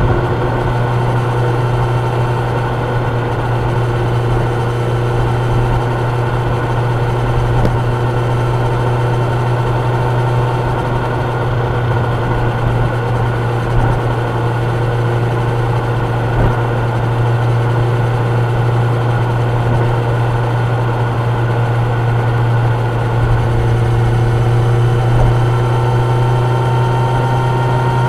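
Kawasaki Ninja 1000's inline four-cylinder engine running at steady, moderate revs as the motorcycle cruises, with the engine note holding nearly level and only small drifts in pitch.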